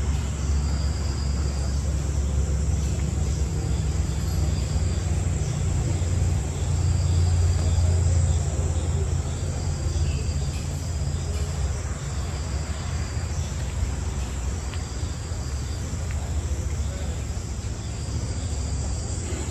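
Night insects chirping in a garden, a high trill pulsing on and off every two seconds or so over a steady high buzz. Under it runs a constant low rumble.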